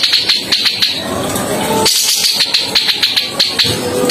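Grey-cheeked bulbul (cucak jenggot) giving a rough, harsh chatter: a dense, unbroken run of quick scratchy rattling notes.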